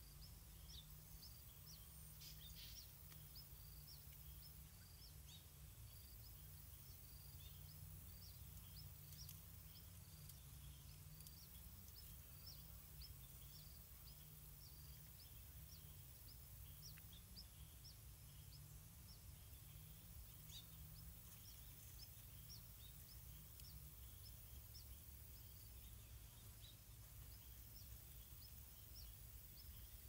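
Faint outdoor ambience: thin, high chirps repeating about twice a second over a low, steady hum.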